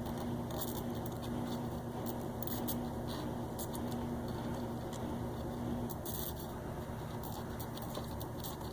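Faint small clicks and rustles of a screw and wire being handled in a bakelite power-cord connector, over a steady low background hum that stops about six seconds in.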